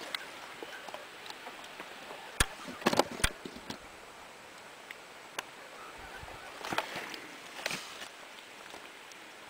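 Faint steady outdoor hiss with scattered sharp clicks and knocks: a cluster of four about two and a half to three and a half seconds in, and a few more around seven to eight seconds.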